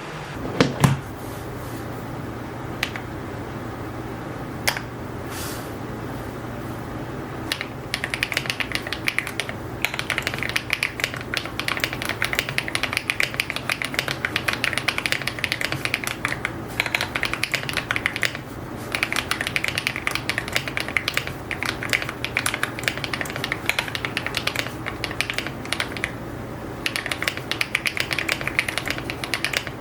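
Custom EPOMAKER x AULA F75 mechanical keyboard with HMX Latte linear switches and copper metal keycaps: a heavier knock near the start and a few scattered keystrokes, then from about eight seconds in continuous fast typing. A low steady hum runs underneath.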